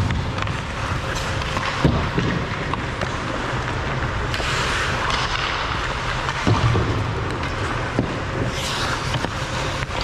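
Ice hockey game play: skate blades scraping and carving on the ice, with a few sharp clacks of sticks and puck. Two longer hissing scrapes of the ice stand out, about four seconds in and again near the end.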